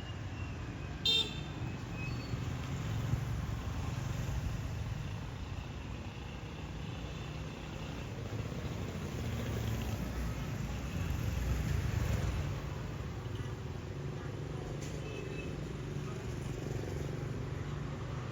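Street traffic: vehicle engines running steadily, with a short horn toot about a second in.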